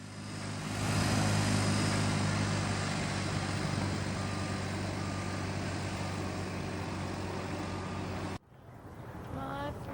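Heavy construction machinery engine running steadily, with faint back-up alarm beeps about once a second. It cuts off suddenly near the end.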